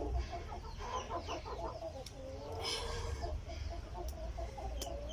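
Chickens clucking in a run of short, wavering calls, with small high chirps over them.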